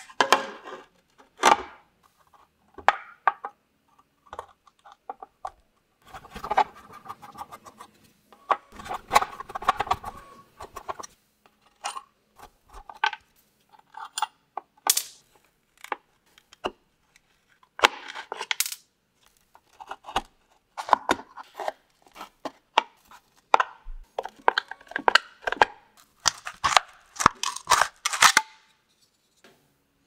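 Small tacks being pried out of an old wooden sweeper nozzle with end-cutting nippers: an irregular run of scrapes and sharp metal clicks, with small nails clinking as they drop onto a metal bench top.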